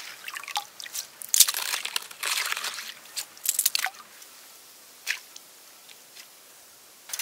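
Mesh ice skimmer scooping slush and ice chips out of an ice-fishing hole: crunchy, wet scraping with dripping, in several bursts over the first four seconds, then mostly quiet.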